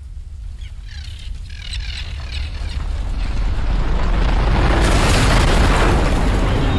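Deep, heavy rumble that swells steadily louder for about five seconds until it fills the whole range, a cinematic trailer rumble like the ground shaking.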